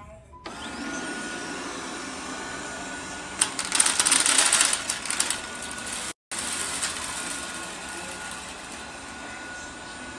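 Liectroux robot vacuum cleaner starting up about half a second in and running with a steady whine. A few seconds in comes a loud crackling rattle for about two seconds as it sucks up scattered rice, coffee and coconut from the hard floor, then it runs on steadily.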